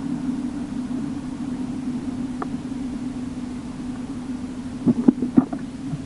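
Vehicle engine running at a steady, unchanging pitch as a low hum, with a few short sharp knocks about five seconds in.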